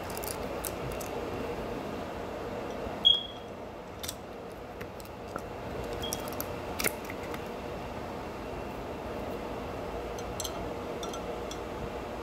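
Silicone lid being stretched over the rim of a ceramic coffee mug: scattered light clicks and taps against the mug, with one sharper clink about three seconds in, over a steady background hiss.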